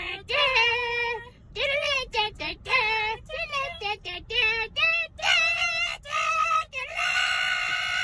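A high voice singing a melody with vibrato, in short phrases with brief breaks, ending on a long held note.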